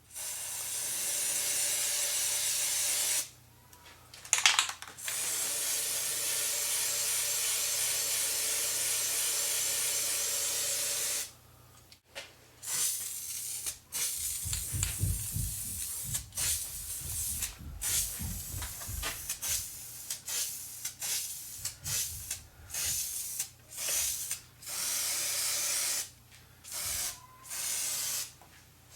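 Aerosol spray can spraying: two long sprays of several seconds each, then a run of short bursts, with a brief clatter between the first two sprays.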